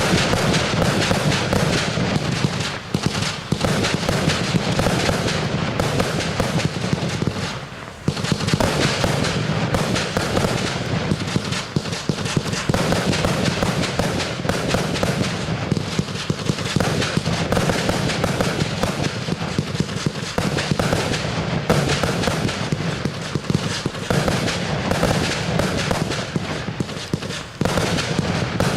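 Fireworks going off in a dense, rapid run of bangs and crackles, with a short lull about eight seconds in.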